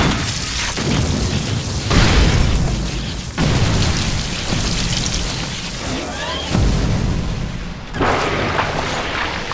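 A series of sound-effect booms, explosion-like hits that each start suddenly and die away in a long low rumble, about five in a row.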